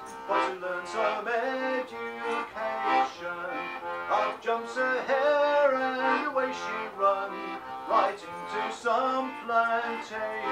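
Button accordion playing a folk tune, melody over chords, with notes changing quickly and evenly throughout.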